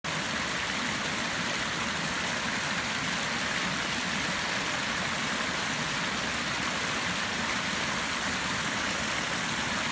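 Muddy storm runoff rushing through a culvert and pouring over a small drop into a woodland ditch, the channel swollen by a heavy downpour: a steady, even rushing of water.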